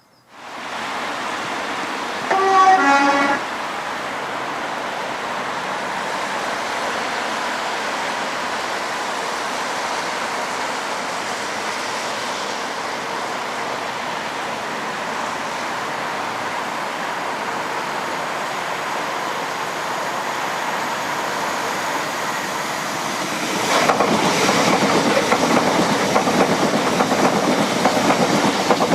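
A two-tone train horn sounds once, briefly, about two seconds in, over a steady rushing noise. Near the end a train passes, noticeably louder.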